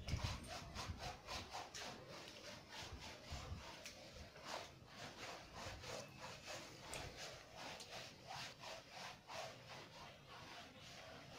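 Bath brush scrubbing a wet, soapy Doberman's coat in short back-and-forth strokes, about two or three a second, faint and even.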